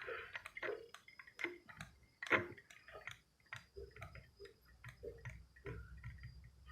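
Irregular small clicks and ticks of a Phillips screwdriver working screws out of an angle grinder's housing, about two or three a second, with one louder click a little over two seconds in.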